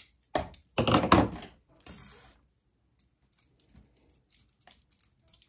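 A jade plant's root ball of soil and roots being trimmed and handled: a few rough crackling, crumbling noises in the first two seconds, the loudest about a second in, then only faint small clicks.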